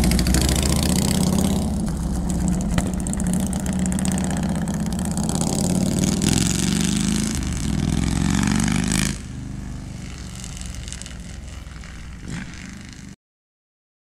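2005 Harley-Davidson Road King's 88-cubic-inch Twin Cam V-twin, breathing through true dual headers and unbaffled 33-inch fishtail pipes, riding off and accelerating, its pitch rising and falling as it pulls away. About nine seconds in the sound drops suddenly to a much quieter engine note, then cuts off shortly before the end.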